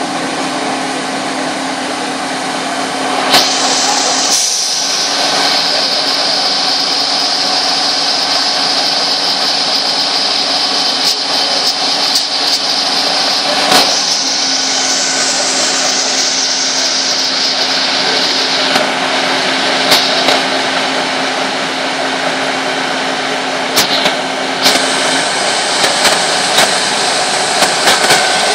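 Fire engines running at a fire scene: a steady low engine hum with a high whine over it that comes in a few seconds in and shifts higher near the end, with scattered short knocks.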